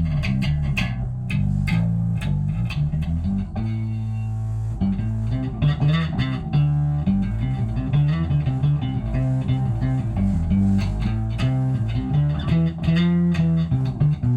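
Electric bass played through an Electro-Harmonix Bass Mono Synth pedal and a Digitech X-Series Bass Driver: a distorted synth-bass tone with a sub-octave feel and much of the high end taken off. A steady stream of plucked notes.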